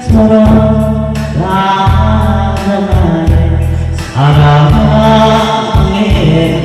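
A singer performing a song over loud amplified accompaniment, holding long, bending notes over a steady bass line.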